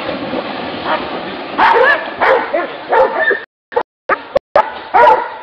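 Dogs barking and yelping in short, loud bursts, several times over; the sound cuts out briefly a few times past the middle.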